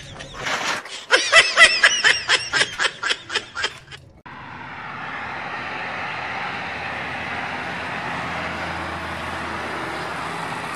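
A man laughing in quick repeated bursts that trail off over about four seconds, then, after a sudden cut, a steady rush of road traffic.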